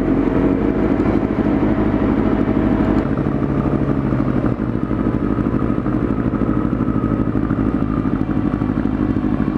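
Motorcycle engines idling steadily, heard close to the rider.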